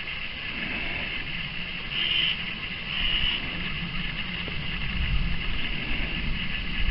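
Wind buffeting the microphone, heavier in the second half, with two short crow caws about two and three seconds in.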